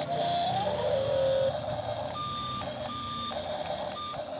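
Toy RC excavator's small electric gear motors whining as the arm and bucket move, rising in pitch about half a second in. From about two seconds in the toy's sound unit beeps four times like a reversing alarm, showing the toy works again after a loose wire was resoldered.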